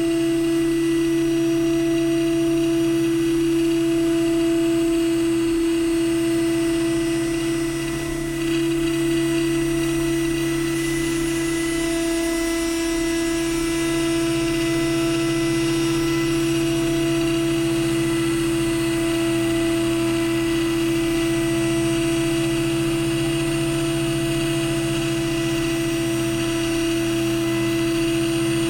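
CNC mill spindle running steadily as a PCD face-milling insert surfaces aluminum: a constant strong hum with fainter high whines above it, dipping briefly about eight seconds in. It is picked up by the camera mounted on the machine's moving W axis near the spindle, which passes on the machine's vibration.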